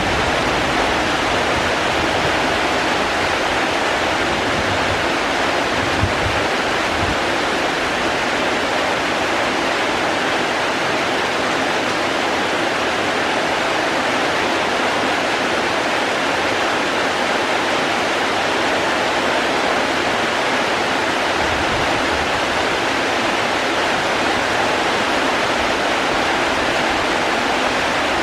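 Steady, even rush of heavy rain falling, with a couple of brief low rumbles, one about six seconds in and one past two-thirds of the way.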